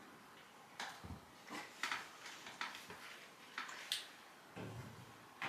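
Scattered light clicks and taps as the air-filter vent and filter are handled, several of them in a few seconds with quiet in between.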